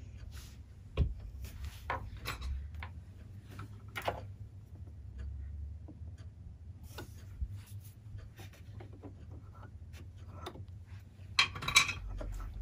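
Small clicks and rubbing from hands working a Brother CS6000i sewing machine's automatic needle threader and drawing the thread through with tweezers. A few sharp clicks are spread through, with a louder cluster of clicks near the end.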